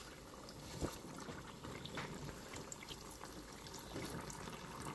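Hot cooking oil sizzling faintly and steadily, with scattered small crackles, as pastries deep-fry in it.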